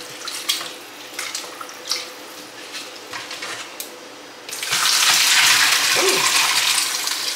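Boiled macaroni drained from a steel pot into the sink: a few light knocks of the pot at first, then, about four and a half seconds in, the cooking water pours out in a loud rushing splash that tapers off near the end.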